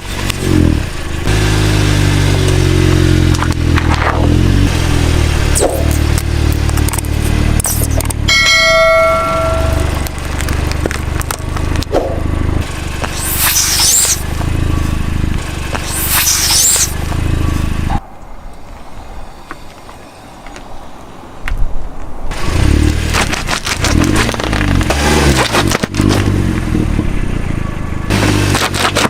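A car engine running and changing speed, with crunching and cracking as objects are crushed under the tyres. A short ringing tone sounds about nine seconds in, and a quieter stretch past the middle ends in a sharp, loud crack.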